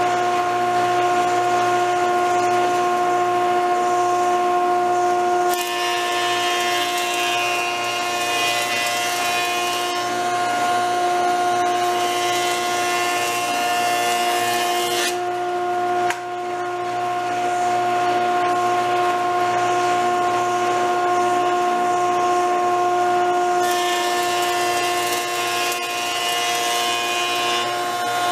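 Jointer running with a steady motor whine while boards are edge-jointed: two long passes over the cutterhead, the first from about 5 seconds in to about 15 seconds, the second starting near 24 seconds.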